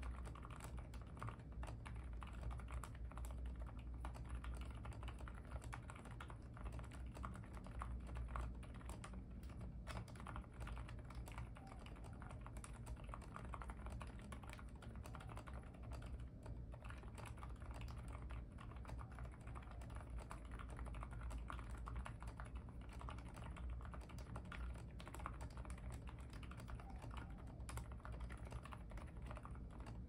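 Continuous fast typing on a Cidoo ABM066 Alice-layout mechanical keyboard with lubed Cherry MX Silent Red switches, Cherry-profile PBT keycaps and foam and tape mods: quiet, dense keystrokes with a steady low hum underneath.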